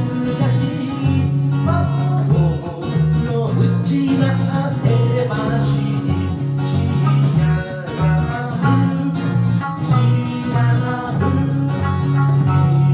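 Electric sanshin, the Okinawan three-stringed lute, plucked in a continuous melodic passage over low sustained notes.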